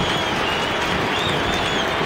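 Large stadium crowd cheering and applauding, a steady wash of noise with a few thin whistling tones above it.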